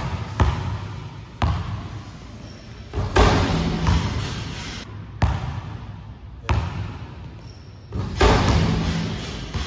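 A basketball bouncing on a gym floor, separate bounces every second or two, each echoing through the hall. About eight seconds in a heavier hit as the ball is dunked and the rim is slammed.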